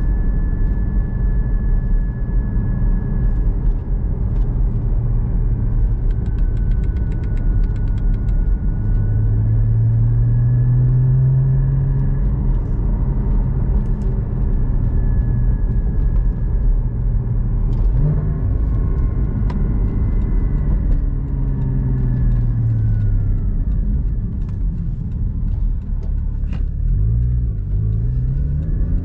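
Porsche Cayman GT4's 3.8-litre flat-six heard from inside the cabin while driving, the engine note rising under acceleration and falling as it eases off, twice. Near the end the revs climb in several short quick steps through gear changes on the manual gearbox, then rise again.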